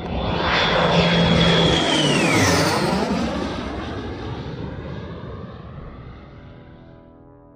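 Aircraft making a low flyby: a loud engine roar with a high whine and a lower hum that both drop in pitch as it passes, about two seconds in, then fades away.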